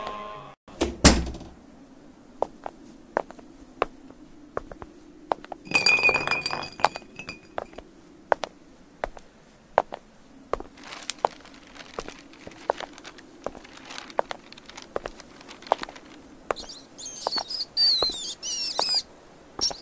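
Glass bottle rolling and knocking over cobblestones: a loud knock about a second in, then irregular clinks and knocks, with a ringing clink about six seconds in. High, wavering squeaks come in near the end.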